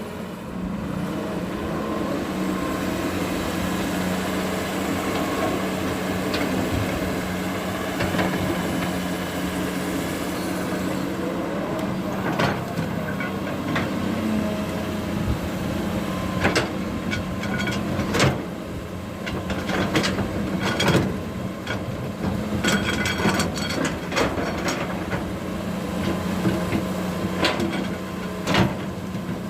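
Heavy machinery's diesel engine running steadily, with sharp knocks and clatter coming thick from about halfway through, typical of soil and stones being dug and dumped.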